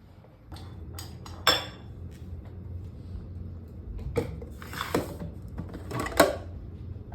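Several sharp clinks and knocks, like dishes or cutlery being handled, the loudest about a second and a half in and again near the end.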